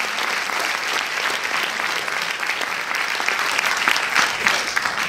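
Audience applauding, a steady dense clapping with a few louder single claps standing out near the end.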